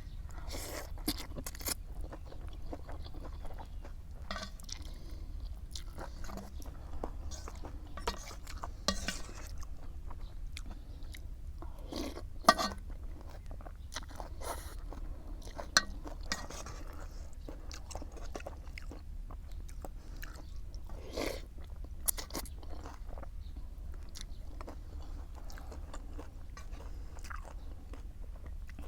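Close-up chewing and crunching of crisp food: irregular crackly bites, a few of them sharper, over a steady low hum.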